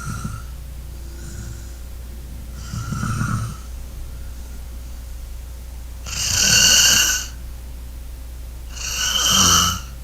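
A person snoring, one snore every two to three seconds, the last two the loudest, over a steady low hum.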